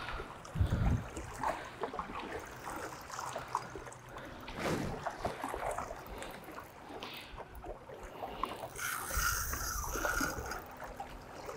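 Small waves lapping and trickling among the shoreline rocks, with scattered small clicks and a brief hiss about nine seconds in.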